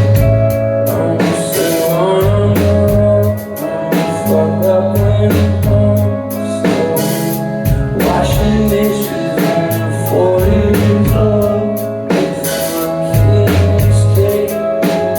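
Live band playing a song: drum kit keeping a steady beat with cymbals, bass and guitar chords, and a sung lead vocal.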